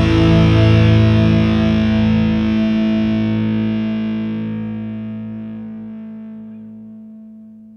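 Background rock music ending: a final held chord rings on and slowly fades away.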